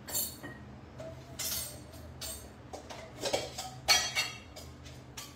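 Metal kitchen containers and utensils clinking and knocking against each other as they are handled: about half a dozen sharp clinks, each with a brief ring, the loudest about four seconds in.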